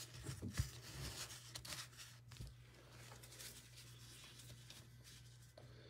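Faint rustling and light taps of trading cards being handled and set down by gloved hands in the first couple of seconds, then near quiet over a steady low hum.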